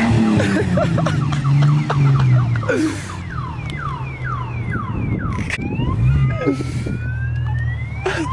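A car alarm sounding, cycling through its tone patterns: quick repeated chirps, then a run of falling sweeps, then slow rising sweeps near the end, with a low steady hum underneath.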